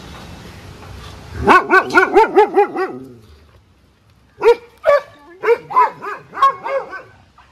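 A dog barking: a quick run of about eight barks, a short pause, then another run of barks.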